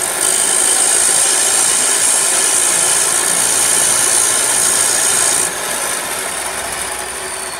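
Electric abrasive chop saw grinding the jagged cut end of an all-thread rod to take off the burr: a loud, high-pitched grinding. It stops about five and a half seconds in, leaving a falling whine as the saw winds down.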